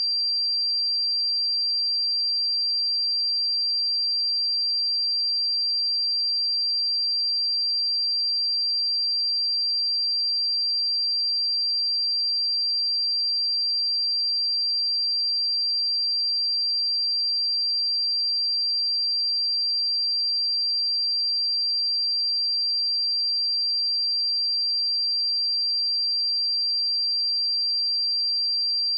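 Pure sine-wave test tone at 4722 Hz, a single steady high-pitched whistle held at constant level.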